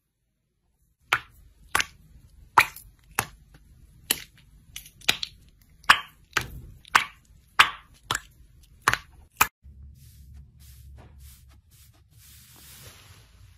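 Small zip-top plastic bags filled with liquid slime being squeezed until they burst, one after another: about a dozen sharp pops, roughly one every half second.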